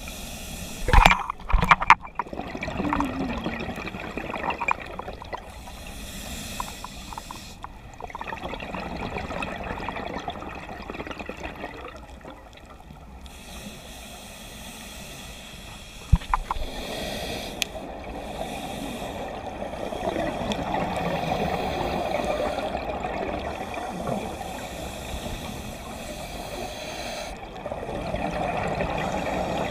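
Underwater scuba breathing through a regulator: hissing inhalations alternating with gurgling rushes of exhaled bubbles. A few sharp knocks sound about a second in and again about halfway through.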